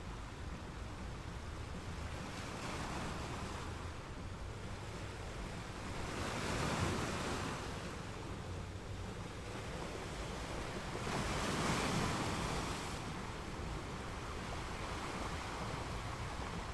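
Steady rushing noise that swells up twice, each swell lasting a couple of seconds.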